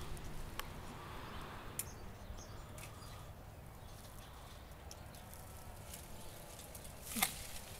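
Long-handled pruning shears snipping thin branches of a bare shrub: a few sharp, spaced-out clicks, the loudest near the end, over a faint steady outdoor background.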